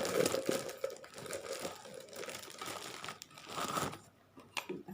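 Plastic wrapping crinkling and rustling as it is pulled off mixer grinder jars, dying away after about four seconds.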